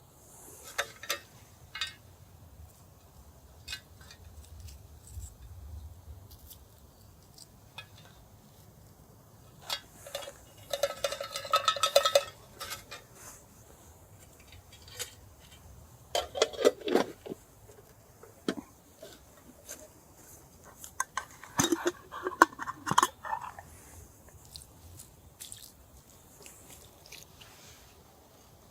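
Metal camp gear being handled: scattered light clicks, with three bouts of clinking and clattering that ring briefly, about ten, sixteen and twenty-two seconds in.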